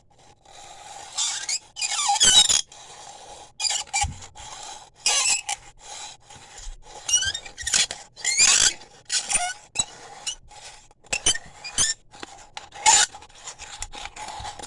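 Harsh, high-pitched screeching and scraping in irregular bursts, some with quick gliding squeals, in stops and starts.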